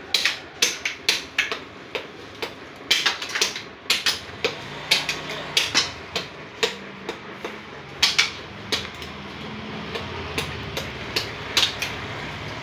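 A Jakarta-made hand axe chopping the hard shell off a mature coconut held in the hand: quick, sharp knocks at about two a second, in an uneven rhythm. A low steady hum comes up underneath in the second half.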